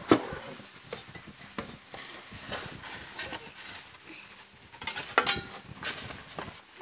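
Handling noise from unpacking a turbo broiler: irregular clinks and knocks of its perforated stainless steel rack and glass bowl, with rustling of the packing. A sharp knock right at the start is the loudest sound, and a cluster of rustles comes about five seconds in.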